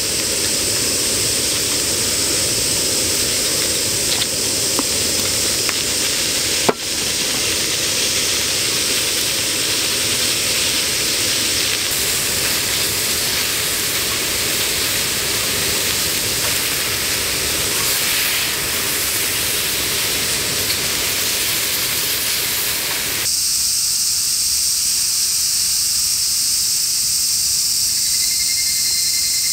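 Lamb slices with bean sprouts and onions sizzling steadily on a cast-iron jingisukan grill pan over a gas stove, with a single sharp click about seven seconds in. About 23 seconds in the sizzle stops, leaving a steady high drone of insects in the woods.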